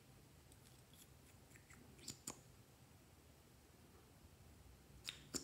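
Small plastic clicks from handling a Peripera Ink Gelato lip tint tube and its cap: a few faint ticks, then two sharp clicks about two seconds in and two more near the end.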